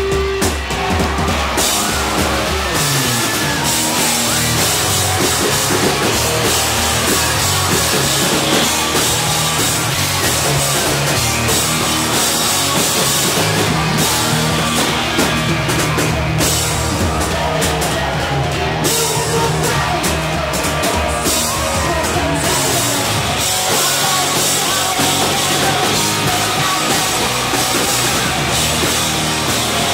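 Three-piece rock band playing live and loud: electric guitar, bass guitar and drum kit.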